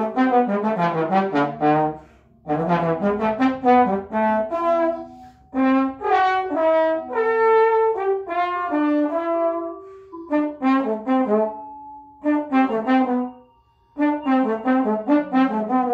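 Trombone improvising in quick runs of short notes, in phrases broken by brief pauses, with some longer held notes in the middle.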